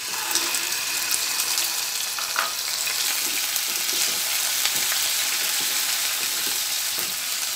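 Marinated chicken breast pieces sizzling in hot oil in a non-stick frying pan as they go in, stirred with a wooden spatula: a steady frying hiss with faint spatula ticks.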